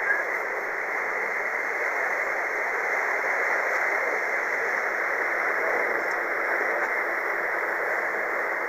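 Steady rushing noise of wind and churning wake water alongside a ship under way, thin and tinny in tone.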